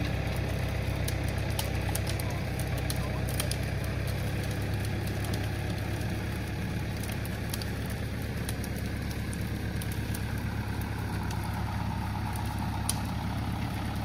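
An engine idling steadily with a low hum, with faint scattered clicks over it.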